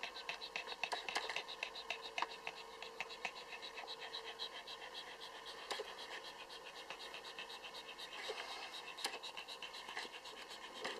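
Lhasa Apso mother dog panting fast and evenly, several breaths a second, close to the microphone.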